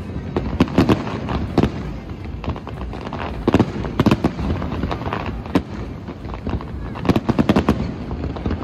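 Aerial fireworks shells bursting in quick succession: sharp bangs and crackles that come in clusters, about a second in, in the middle and again near the end, over a steady low background noise.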